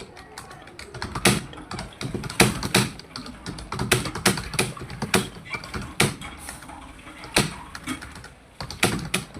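Typing on a computer keyboard: a steady run of irregular key clicks, several a second, with some louder strokes among them.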